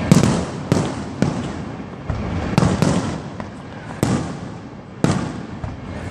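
Aerial firework shells bursting in irregular succession, about eight sharp booms in six seconds, each trailing off in an echo. The loudest comes right at the start.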